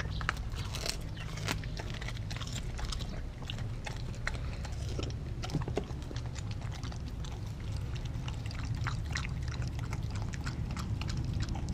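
A Kelpie–German Shepherd cross dog chewing raw turkey steaks from a stainless steel bowl, with many short irregular wet clicks and crunches, over a steady low rumble.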